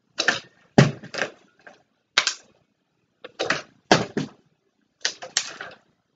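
Partly filled plastic water bottle being flipped and hitting the carpeted floor, giving a series of short, sharp knocks and clatters in several quick groups as it lands, tips and is picked up again.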